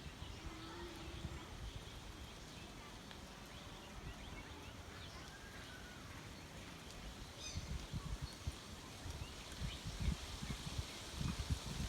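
Quiet rural outdoor ambience with faint, scattered bird calls, and low rumbling thumps in the last few seconds.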